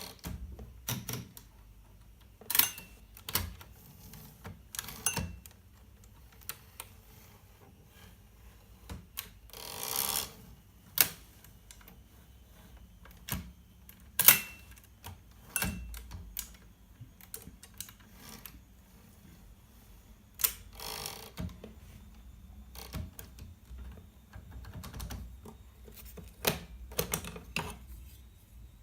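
Hermes 3000 portable typewriter being worked by hand: irregular, scattered clicks and clacks of its mechanism, not steady typing, with a couple of longer noises lasting about half a second around ten and twenty seconds in.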